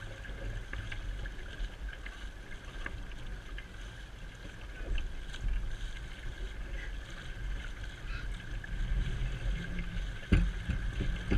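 Sea water rushing and splashing along the hull and in the wake of a sailing boat, with wind buffeting the microphone as a low rumble. A sharp thump about ten seconds in.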